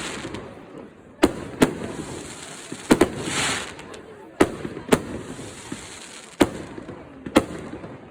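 Firework display: aerial shells bursting in sharp bangs about one a second at uneven gaps, each with a short echoing tail, with a hissing swell a little past three seconds in.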